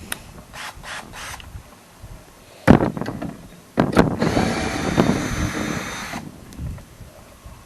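A handful of light clicks and a loud knock, then a cordless drill fitted with an 11 mm socket runs for about two seconds, unscrewing a bolt, and stops abruptly.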